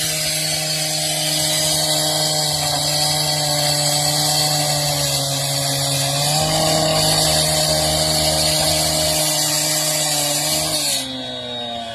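Gas-powered two-stroke saw running at full throttle while cutting brick, a steady high whine whose pitch dips briefly about six seconds in. Near the end the cutting stops and the engine comes off the throttle, its pitch falling.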